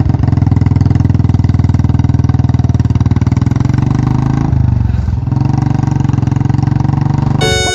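Motorcycle engine running steadily, its exhaust pulsing rapidly and evenly. The note dips briefly about four and a half seconds in, then settles back.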